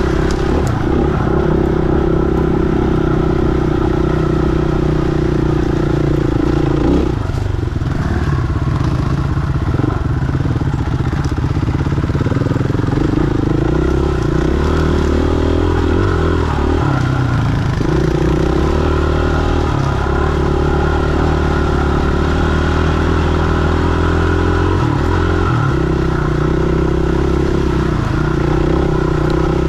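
KTM 500 single-cylinder four-stroke dirt bike engine running under load, with the throttle easing off and picking up again about 7, 17 and 25 seconds in.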